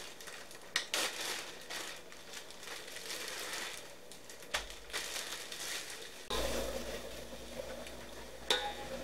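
Plastic tortilla bag crinkling and rustling in short spells as it is opened and tortillas are pulled out of it. About six seconds in, a steady low hum comes in, and there is one sharp click near the end.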